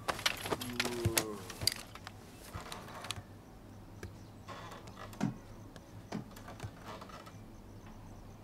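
Scattered clicks and knocks over the first few seconds, then crickets chirping faintly and steadily from about halfway through.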